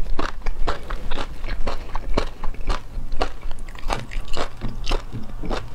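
A person biting and chewing crunchy fried food, a quick irregular run of crisp crackles and crunches.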